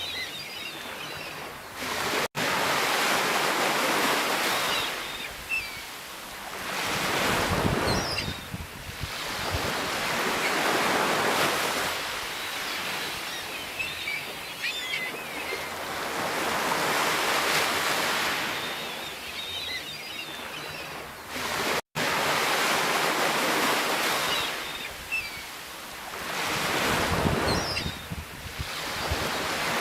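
Sea waves breaking and washing in, swelling and ebbing every several seconds, with the fizz of foam as each wave runs up. The sound drops out for an instant twice.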